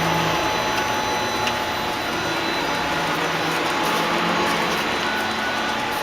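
Tsugami BS-20BII CNC Swiss lathe running: a steady whirring noise with a steady high whine through it.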